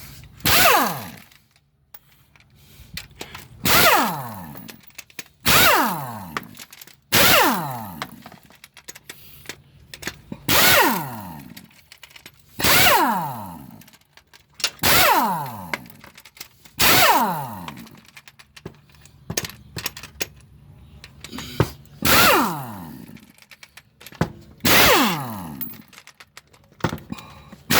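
A handheld power tool run in about a dozen short bursts, each starting sharply and falling in pitch as the motor winds down, while engine bolts are loosened.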